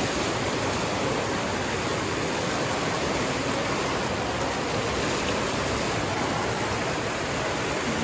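Fountain jets splashing down into the basin and water spilling over its rim: a steady rushing splash.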